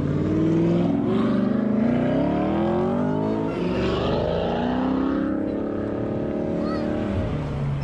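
Performance cars accelerating past, first an Audi R8 and then a black muscle car, their engines revving up in several rising sweeps of pitch. The revving settles into a steadier engine note near the end.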